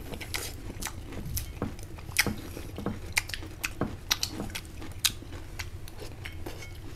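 Someone chewing and eating food, with small irregular clicks and taps of cutlery or dishes.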